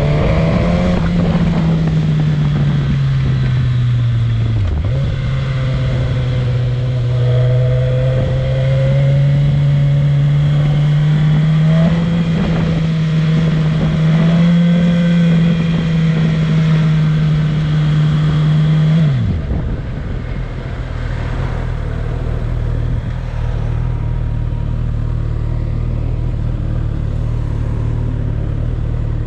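Suzuki GSX-S1000's inline-four engine running steadily under way, with one brief drop and recovery in pitch about five seconds in. About two-thirds through the revs fall away and the engine settles to a low, steady idle.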